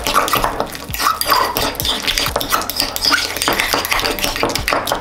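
A metal fork stirring and mashing a soft egg-and-mayonnaise mixture in a ceramic bowl: rapid, irregular clinks and scrapes of the fork against the bowl.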